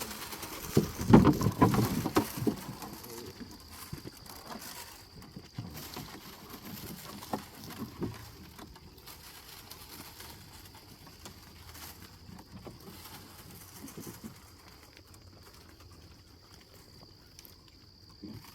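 Sheep feed rattling into a trough in a quick run of knocks, then scattered light knocks and rustles as the sheep start eating. A faint steady high-pitched tone runs underneath.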